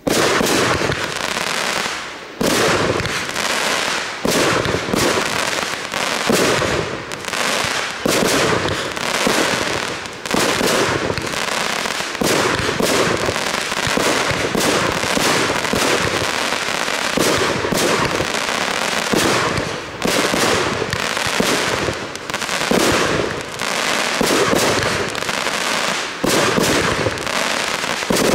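Fireworks display: aerial shells bursting in a dense, continuous barrage of overlapping bangs and crackling, starting suddenly.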